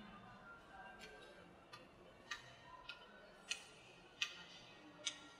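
A run of about seven sharp, hard clicks, roughly one every two-thirds of a second, the loudest near the middle.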